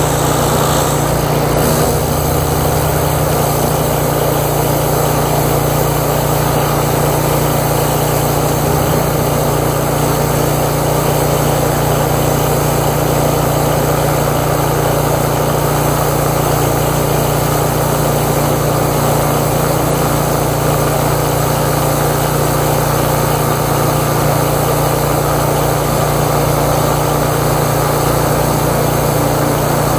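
13-horsepower high-pressure washer engine running steadily at full load while its double-barrel lance blasts a high-pressure water jet into plywood, the jet's spray hissing over the engine.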